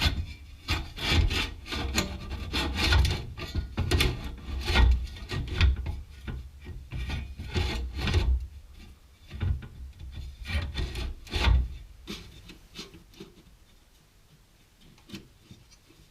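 Steel top hat floor section being pushed and worked into place under a VW bus, scraping and knocking irregularly against the surrounding metal during a test fit. The scraping stops about twelve seconds in, leaving only a couple of small knocks.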